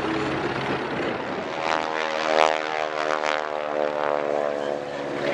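Piston engine and propeller of a single-engine high-wing light aircraft droning steadily as it flies past overhead, loudest a little before halfway through.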